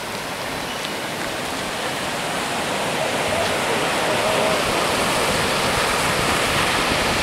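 High-tide surf washing up a boat ramp and spilling across the pavement: a steady rush of churning seawater that grows louder over the first few seconds, then holds.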